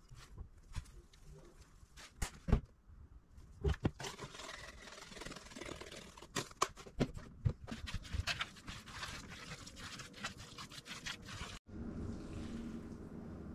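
A bowl of wet fish cake mixture (cooked fish, breadcrumbs, mayonnaise and egg) being stirred and mashed. A few sharp knocks come first, then several seconds of busy, irregular scraping and clicking. It stops abruptly near the end, leaving a steady low hum.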